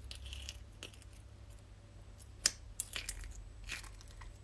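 Fingers poking and pressing a firm, clear liquid-glass slime in a plastic tub: faint, scattered sharp clicks and pops, the loudest about halfway through, then a quick cluster of them as the slime is pulled up out of the tub.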